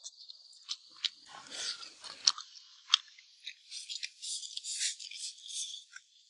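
People eating at a table: chewing, with several sharp clicks of chopsticks against bowls.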